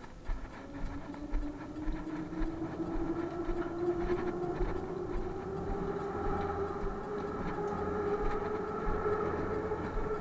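Moscow Metro train's electric traction motors whining, the pitch rising slowly and steadily as the train accelerates, over a low, regular knocking.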